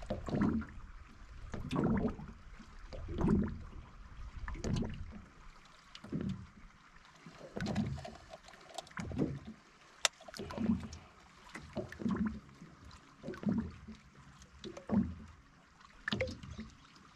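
Small waves lapping against the aluminum boat's hull, a soft slap about every second and a half. A single sharp click about ten seconds in.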